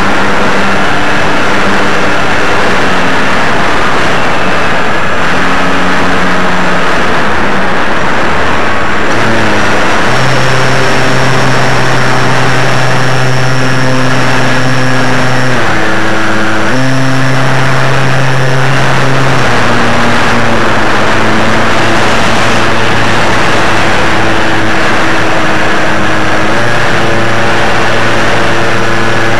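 Aircraft engine and propeller recorded from a camera mounted on the aircraft, running loudly under heavy wind rush, its pitch stepping up and down several times as the throttle changes.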